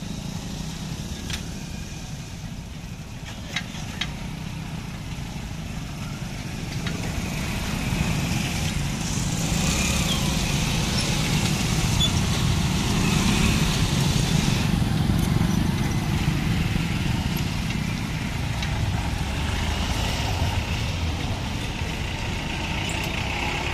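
Road traffic of motorcycles and small vehicles crossing a railway level crossing: engines running and tyres on the road, getting louder from about eight seconds in as the traffic passes close. Two sharp clicks come about three and a half and four seconds in.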